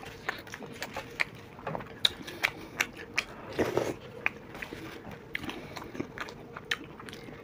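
Fast eating of dahi vada: metal spoons scraping and tapping on paper plates and soft, wet chewing, in quick irregular clicks, with one louder mouth sound a little past halfway.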